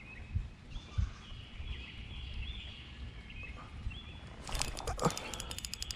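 Birds chirping over a low rumble of handling. About three-quarters of the way in, a spinning reel starts clicking rapidly and keeps on: the reel ratcheting under load from a hooked turtle, with a thump among the clicks.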